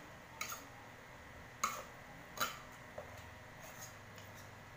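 Eating sounds: a handful of short clicks and smacks, the two loudest about one and a half and two and a half seconds in, with a few fainter ticks after, over faint room hiss.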